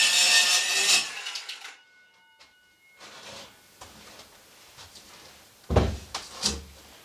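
Saw cutting wood, dying away about a second in, followed by quiet handling clatter and a few thumps and knocks near the end.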